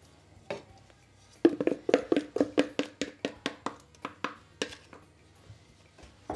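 A spatula knocking quickly against a non-stick frying pan, about five knocks a second for some three seconds, each with a short ring from the pan; a couple of single taps come first.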